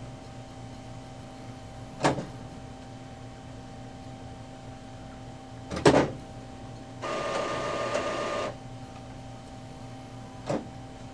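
HP OfficeJet Pro 9018e inkjet printer running its start-up check: sharp mechanical clacks about two, six and ten and a half seconds in, the one at six the loudest, and a motor whirring steadily for about a second and a half around seven seconds in.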